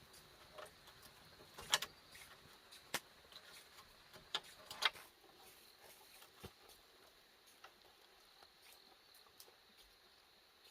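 Irregular light clicks and knocks, with a few sharper ones in the first five seconds and only sparse faint ticks after that.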